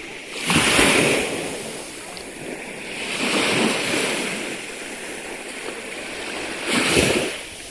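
Ocean surf: waves breaking and washing in, rising to three surges of rushing water a few seconds apart.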